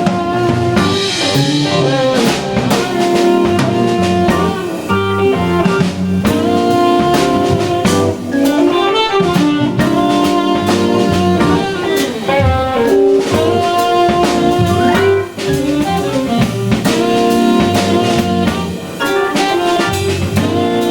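Live organ-jazz band playing a bluesy jazz tune: organ chords held under electric guitar, with a drum kit keeping a steady beat.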